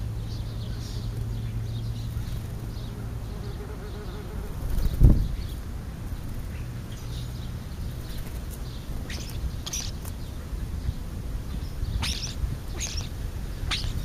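House sparrows chirping in short high notes, more often near the end, over a low steady buzz that fades about four seconds in. A loud dull thump about five seconds in is the loudest sound.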